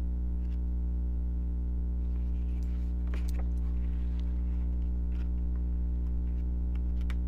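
A steady low hum with evenly spaced overtones throughout, with faint clicks and a brief rustle of handling now and then, most of it a little under halfway through.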